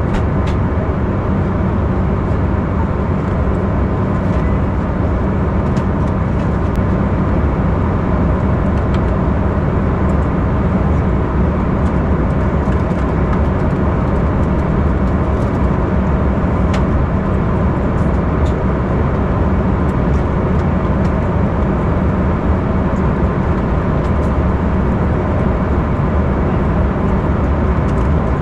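Steady airliner cabin noise of an Embraer E195 in cruise: the constant roar of its turbofan engines and the airflow over the fuselage, heard from inside the cabin, with a few faint clicks.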